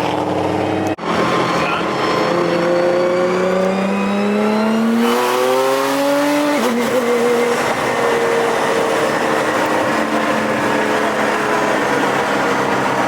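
Nissan GT-R engine accelerating hard, its pitch climbing for about four seconds, then dropping suddenly at a gearshift and running on at a steady pitch.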